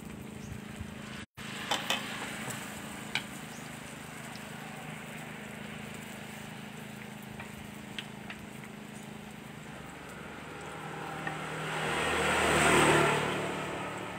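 Banana fritters sizzling steadily in a large pot of deep-frying oil, with a few light clicks of chopsticks against the pot. About twelve seconds in, a passing vehicle swells up, becomes the loudest sound, and fades.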